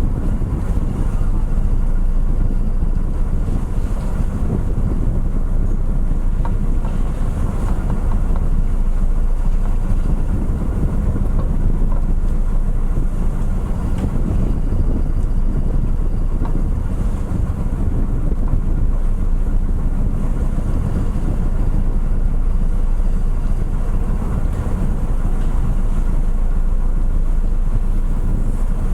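Steady low drone of a car ferry under way, its engines and hull running through the water, with wind buffeting the microphone.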